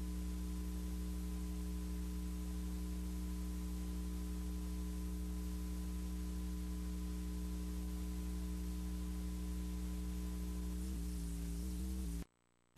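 Steady electrical mains hum with hiss from the tail of an old VHS tape transfer playing a blank stretch. It cuts off suddenly near the end.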